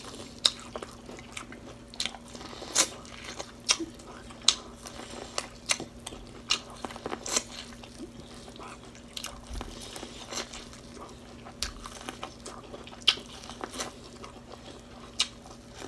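Biting and chewing kernels off an ear of boiled fresh sweet corn on the cob, close to the microphone: irregular crisp crunches, several a second, over a faint steady hum.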